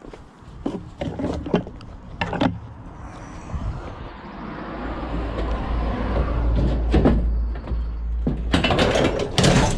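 Knocks and clanks of scrap metal being handled and loaded, a few sharp hits early on and a burst of clatter near the end, while a vehicle passes by in the middle, its rumble building and fading over about five seconds.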